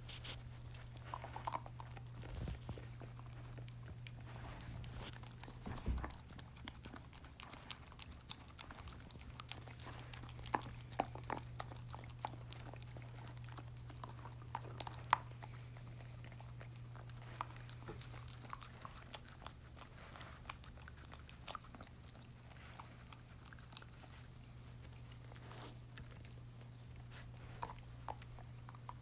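Siberian husky chewing and gnawing a bone spread with peanut butter: irregular wet clicks and crunches of teeth on the bone, over a low steady hum.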